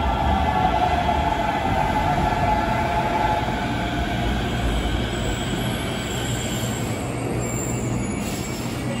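Busan–Gimhae Light Rail train pulling into the station: a steady low rumble with a high whine that falls slightly in pitch and fades after about three seconds.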